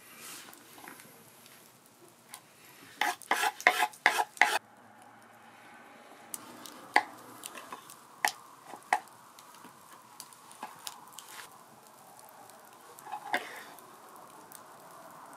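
A metal cooking utensil clinking against a pan: a quick run of about eight strikes a few seconds in, then scattered single clicks, over light sizzling.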